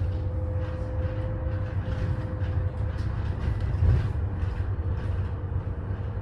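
Steady low rumble of a moving vehicle with a faint steady whine above it, cutting in abruptly.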